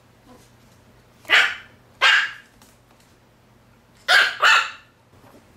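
Maltese puppy play-barking at a sock: four short barks in two pairs, about two and a half seconds apart.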